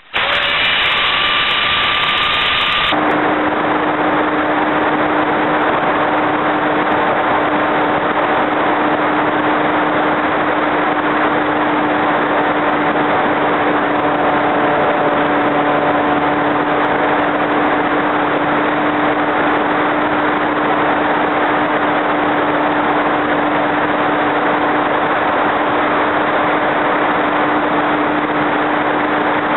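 Motor and propeller of an RC Su-29 model plane heard from its onboard camera: a steady hum under a thick rush of wind noise. For about the first three seconds the pitch is higher, then it drops and holds steady.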